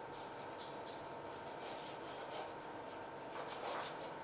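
Quick rubbing strokes across drawing paper, a run of short scratchy passes that get louder near the end.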